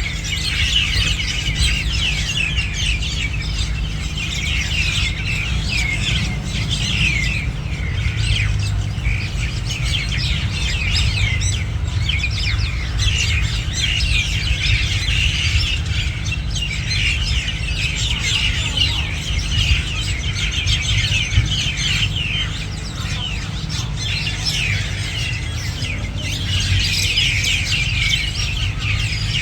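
A large flock of hundreds of birds chirping together in a dense, continuous chorus of overlapping calls, over a steady low rumble.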